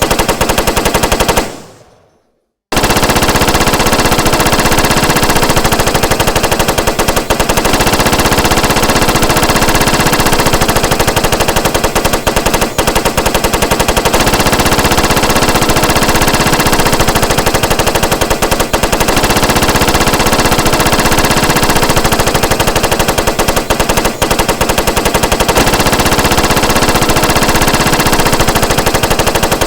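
Machine gun sound effect: a short burst of rapid automatic fire that dies away, then after about a second of silence, long unbroken automatic fire at a rapid rate.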